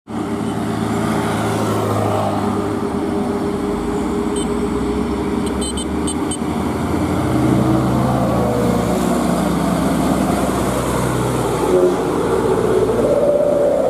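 Heavy diesel truck engine running under load, its note shifting as the revs change and rising near the end.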